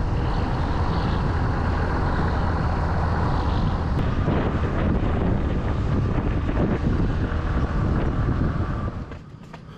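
A vehicle engine running steadily under loud wind noise on the microphone, cut off suddenly about nine seconds in.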